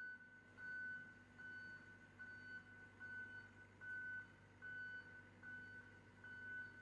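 John Deere 85G mini excavator's motion alarm beeping at a steady pace, about one short beep every 0.8 seconds, faint, over a low steady hum.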